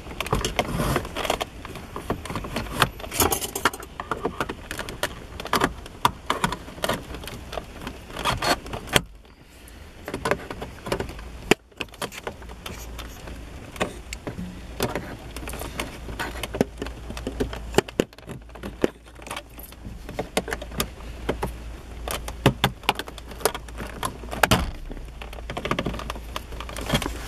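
Steel pliers clicking, scraping and rattling against the plastic trim and metal chassis of a car stereo as the unit is pried and pulled out of the dashboard. The irregular clicking runs on and off, with a quieter pause of a couple of seconds about nine seconds in.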